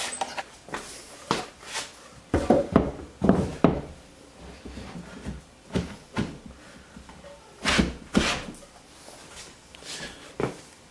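Irregular wooden knocks and thunks, in two louder clusters, from a Baltic birch drill-press base being handled and fitted onto a wall-mounted shelf.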